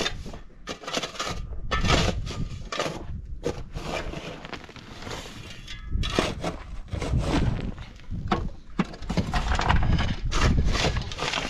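Steel shovel digging into stony, gravelly soil: a run of irregular scrapes and crunches of blade on rock and grit, about one stroke a second.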